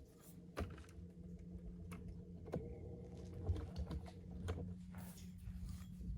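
Scattered light clicks and knocks, a few seconds apart, over a faint steady hum.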